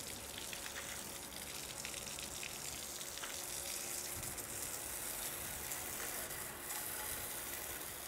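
Garden hose spray nozzle spraying water onto freshly sawn eastern red cedar slabs, rinsing off the sawdust: a steady hiss and spatter of water on wet wood.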